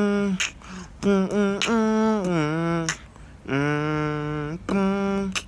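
A man humming a tune in a run of long held notes, one of which slides down in pitch.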